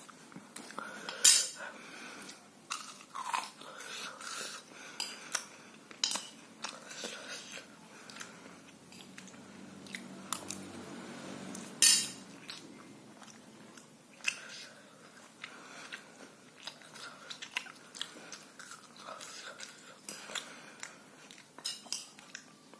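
Close-up eating sounds of a person chewing instant noodles, with a fork clinking and scraping on a plate. Irregular short clicks run throughout; the two sharpest come about a second in and about twelve seconds in.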